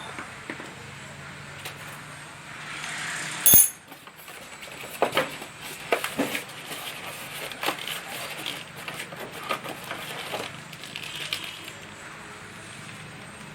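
Metal parts of a magnetic core drill kit being handled. A sharp metallic clink with a brief ring comes about three and a half seconds in, followed by a run of lighter, irregular knocks and clinks.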